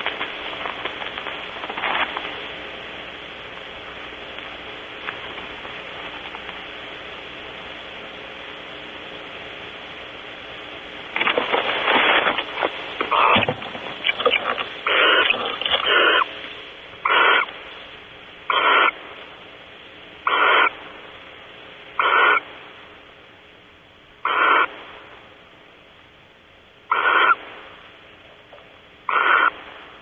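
Barn owl calling inside its nest box: after about ten seconds of steady background hiss, a flurry of harsh, hissing calls, then single short rasping calls about every two seconds.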